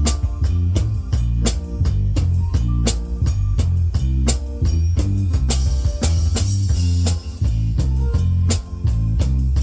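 Band playing a song with drum kit, bass and guitar, the drums keeping a steady beat over a heavy bass line, and a cymbal wash about six seconds in.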